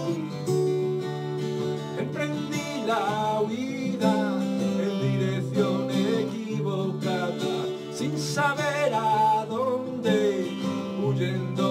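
Two acoustic guitars playing chords together, with a man's singing voice coming in about three seconds in, holding long wavering notes over them.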